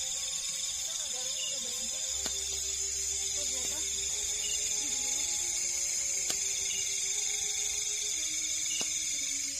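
Night-time insect chorus, a steady high shrill drone, with a few light clicks of camp gear being handled.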